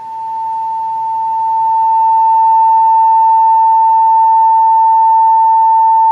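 Steady single-pitch test tone from an audio generator, played through a field-coil (electrodynamic) loudspeaker. It swells louder over the first two seconds as DC comes up on the speaker's field coil, then holds steady: a sign that the field coil is working.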